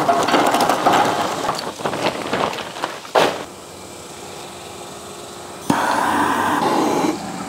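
Lump charcoal poured from a bag into a steel yakitori grill's firebox, the chunks clattering and rattling for about three seconds and ending in a sharp knock. Near the end a lighter's flame hisses for about a second and a half as the fire is lit.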